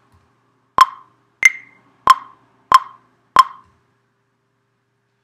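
Maschine 2 software metronome clicking five times at an even pace of about 92 beats a minute. The second click is higher in pitch than the others, the accented click on the first beat of a bar.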